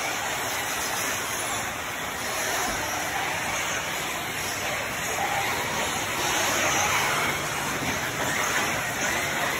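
A pack of 1/8-scale electric RC truggies racing on a dirt track, giving a steady rushing noise.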